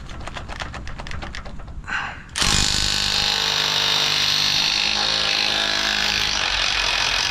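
Cordless impact wrench hammering steadily on a rusted 3/4-inch leaf-spring bolt of a saltwater boat trailer, working to break it loose. It starts about two and a half seconds in, after a run of light, rapid clicking.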